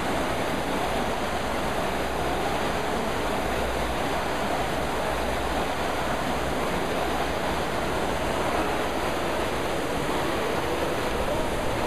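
Steady rushing whoosh of many Concept2 rowing machines' air-resistance flywheel fans spinning together under hard rowing.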